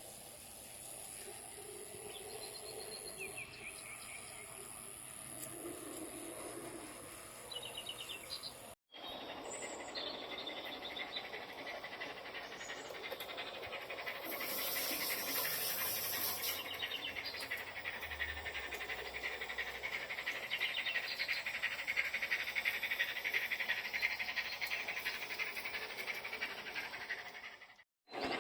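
Countryside ambience sound effect: birds and insects chirping continuously, with the sound cutting out briefly about nine seconds in and again near the end.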